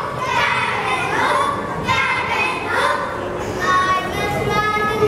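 Children's voices, partly sung, with a few held notes about three and a half seconds in.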